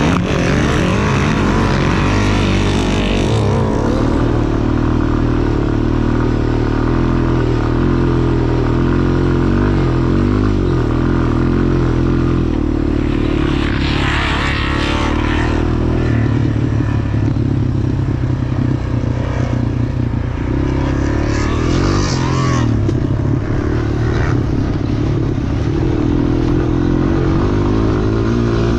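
Quad bike engine running hard on a muddy dirt track, its revs rising and falling as the rider works the throttle.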